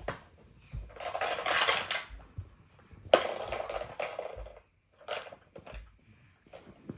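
Rustling with a few light knocks and clicks; a sharp click a little after three seconds is the loudest.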